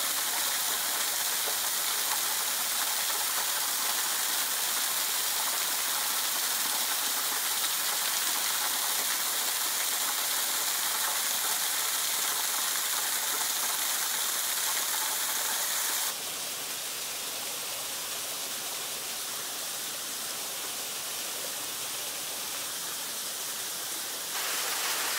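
Small waterfall splashing steadily, thin streams of water falling over stepped rock ledges onto stone. The sound drops a little about two-thirds of the way through and rises again near the end.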